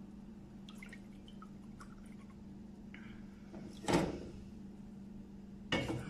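Warm water poured from a stainless-steel kettle into a small glass cup, trickling and dripping faintly. The kettle is then set down with a sharp knock about four seconds in, and there is another knock near the end, over a faint steady hum.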